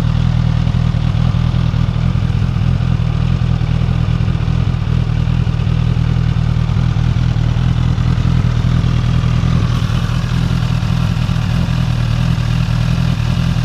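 A 2015 Suzuki GSX-S1000's inline-four engine idling steadily through its stock exhaust, with a low, even note that holds without revving.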